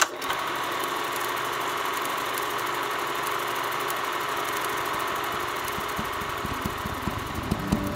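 Split-flap display board clattering: a dense, steady rattle of many small flaps flipping over. A few low thumps come in near the end.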